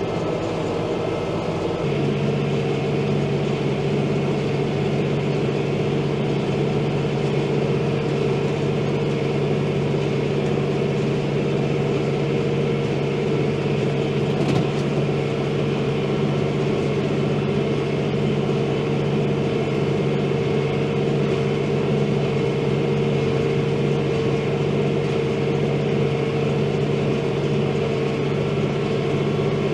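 New Holland Workmaster diesel tractor engine running steadily under load while slowly pulling a square baler; the drone firms up about two seconds in and then holds level.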